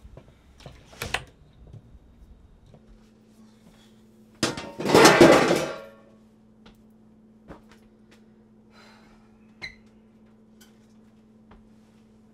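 Cookware clattering loudly for about a second, with a sharp knock just before it, then a few light clinks of a pan and utensils over a steady low hum.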